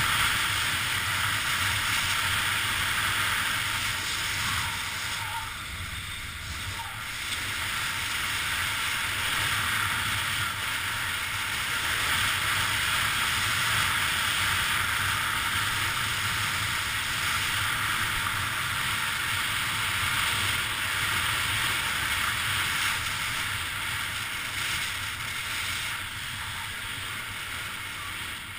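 Steady rushing noise of skis running fast down a groomed ski trail: skis hissing over the snow and wind on the action camera's microphone, easing a little about five seconds in.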